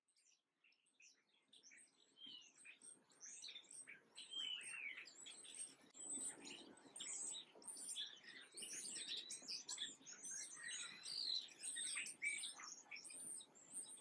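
Small songbirds chirping and twittering, many short high calls overlapping one another, rising from silence over the first couple of seconds.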